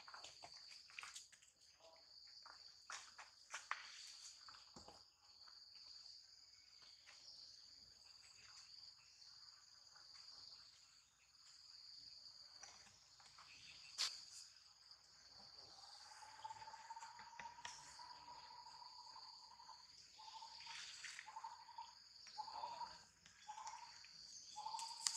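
Faint, steady, high-pitched drone of insects, with scattered light clicks and rustles and one sharper click about halfway. In the last third a faint thin tone rises slowly, then breaks into short repeated notes near the end.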